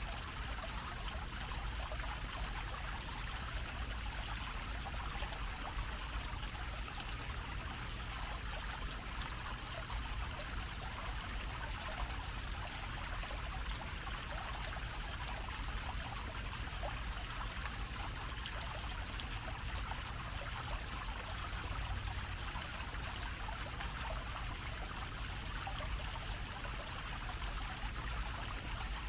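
Small bell-shaped fountain, its dome of water pouring back into a shallow basin in a steady, unbroken splashing, over a low steady rumble.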